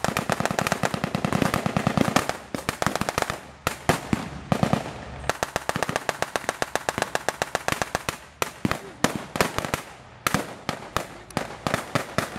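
Blank gunfire from WWII machine guns and rifles: rapid bursts of overlapping shots with single shots between them, densest in the first two seconds.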